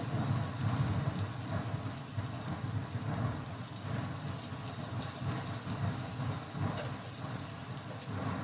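Sliced onions frying in hot oil in a pan: a steady sizzle, with a silicone spatula stirring and scraping them around, over a low rumble.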